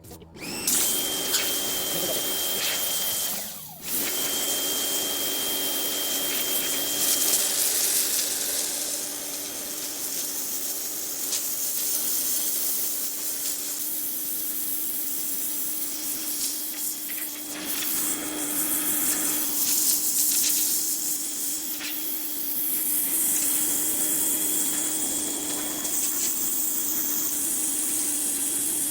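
Pressure washer spraying: a steady, loud hiss of the water jet over a low hum, starting suddenly and cutting out for a moment about four seconds in before resuming.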